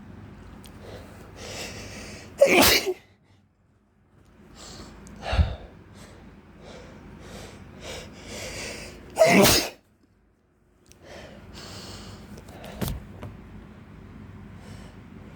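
A man sneezing repeatedly: allergy sneezes brought on by spring pollen and heavy breathing after a workout. There are four sneezes, each after a drawn-in breath; two are much louder than the others and the last is the smallest.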